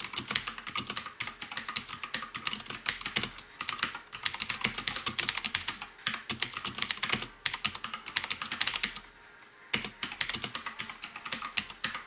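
Fast typing on a clicky mechanical keyboard: a dense run of keystroke clicks that stops briefly about nine seconds in, then starts again.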